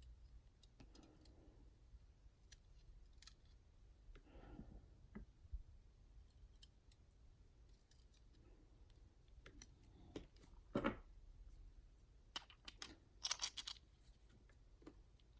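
Faint, scattered clicks and small metallic taps from handling the pins, springs and plug of a dimple lock while it is being reassembled. A louder knock comes about eleven seconds in, with a quick run of clicks shortly after.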